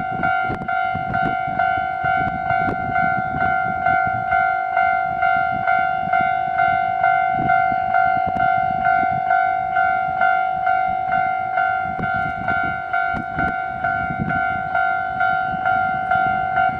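Japanese railway level-crossing warning bell ringing, one steady-pitched ding repeating evenly a little under twice a second.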